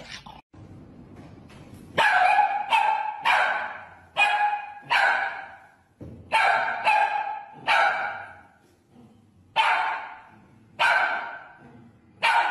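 Small dog barking repeatedly: about eleven sharp barks starting two seconds in, coming roughly one a second, with a short pause near the end.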